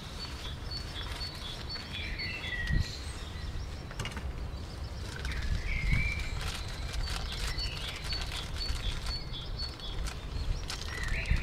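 Outdoor ambience: a steady low wind rumble on the microphone, with birds calling in short chirping phrases three times and a high repeating chirp in the background. A couple of light knocks come about three and six seconds in.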